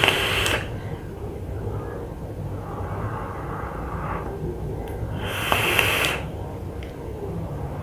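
Two draws on a box-mod vape, each about a second of rushing airy hiss as air is pulled through the atomizer, one at the start and one about five seconds in, with a softer breath out between them.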